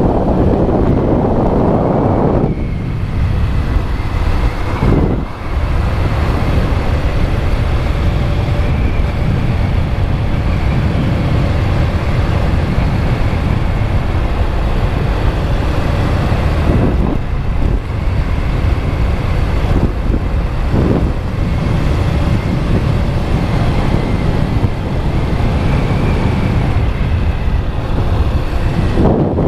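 Motorcycle engine running at road speed with wind rushing over the microphone, the engine sound dipping briefly a few times.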